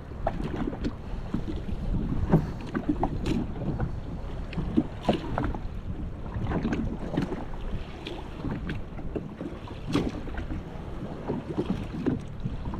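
Wind buffeting the microphone over choppy water, with irregular knocks and splashes of waves slapping against a drifting jetski's hull; no engine running.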